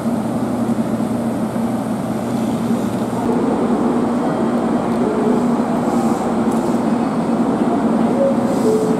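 JR Kyushu 783 series electric train standing at a station platform, humming steadily with a constant low drone. A few short higher tones come in during the second half.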